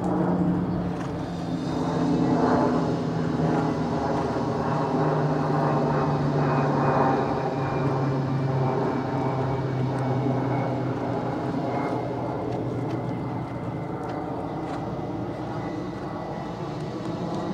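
Propeller airplane engine droning as it flies over, its pitch slowly falling and the sound easing off in the second half.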